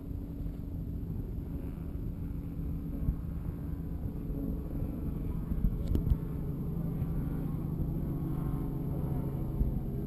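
Motorboat engine running steadily at low speed, a low hum that grows firmer in the second half, over water and wind noise, with a few short thumps.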